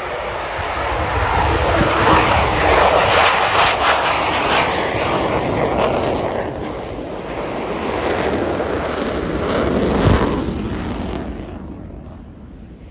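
Twin-engine F-15QA fighter jet at full power on take-off and climb-out: a loud jet roar that swells twice and fades near the end.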